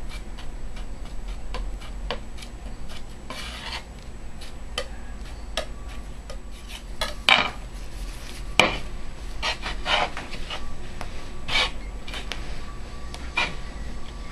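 Palette knife scraping and gathering linseed-oil pigment paste on a glass slab, and a glass muller rubbing over it, in a run of short scrapes and clicks. Two sharper, louder knocks come a little past halfway.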